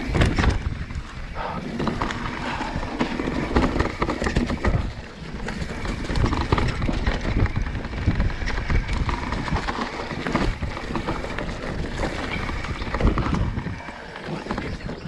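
Commencal enduro mountain bike descending a rocky trail: tyres rolling and crunching over rock and loose dirt, with constant clattering knocks from the bike and wind on the microphone.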